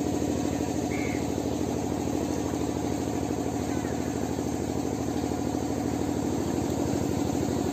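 An engine idling steadily with a fast, even throb that holds constant.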